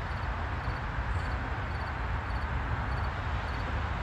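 Steady outdoor background: a low rumble with a light hiss, and faint insect chirps, short pulsed calls repeating at an even pace, between one and two a second.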